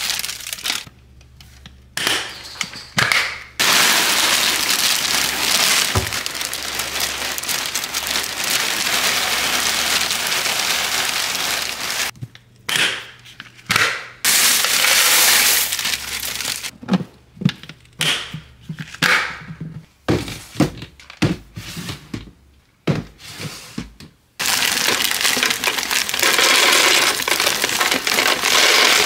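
Dry cereal pouring into plastic storage containers: long, steady rattling rushes of pieces pouring in, with pauses between pours filled with separate clicks and knocks of the containers and lids being handled.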